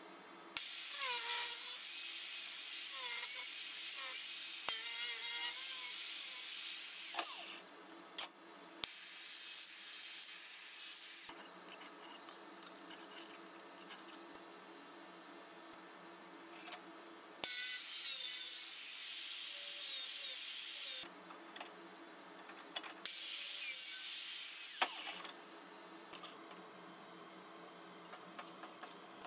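A handheld power tool cutting thin sheet steel in four runs of a few seconds each, a harsh hiss with squealing metal. Each run starts and stops abruptly.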